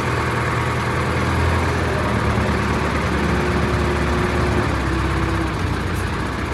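Diesel engine of a hydra mobile crane running steadily under load, a low drone with a faint steady whine through the middle.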